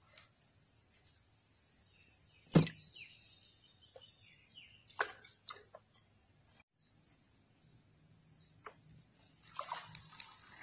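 Steady high-pitched insect chirring with scattered sharp clicks and knocks, the loudest about two and a half seconds in. Near the end comes a cluster of clicks and rustling as the bamboo lift net is hauled up out of the water.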